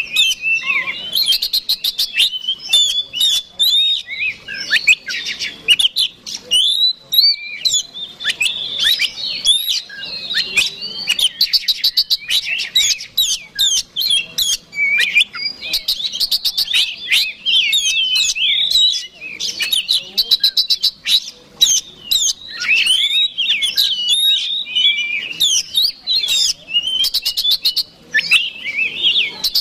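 Oriental magpie-robin (kacer) singing without pause, a loud, rapid, varied run of whistles and chirps broken by fast rattling trills again and again. It is the bird's hard-driven fighting song, the kind used to provoke rival kacer.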